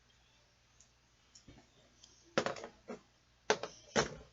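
Plastic fidget toys being handled and set down: a few sharp clicks and clatters in the second half, the loudest two near the end.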